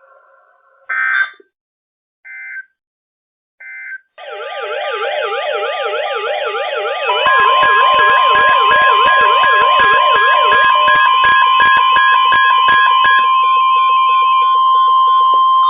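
Emergency Alert System signalling on a NOAA weather radio, announcing a tornado watch: three short digital data bursts about a second apart, then a warbling siren-like alarm that sweeps rapidly up and down. About three seconds later the steady weather radio alert tone joins it and is the loudest part, with a rapid clicking underneath.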